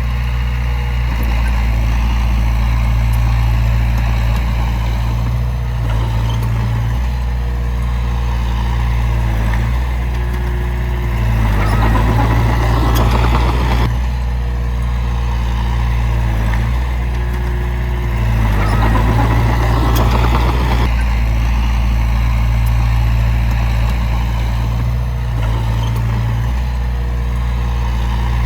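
Heavy diesel earthmoving machinery running steadily with a deep engine hum. It grows louder and rougher twice, about twelve and nineteen seconds in, each time for a couple of seconds.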